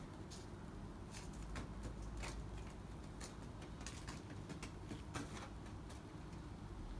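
Faint crackles and rustles of dry leaves under kittens' paws: a dozen or so light ticks scattered over several seconds, over a low steady rumble.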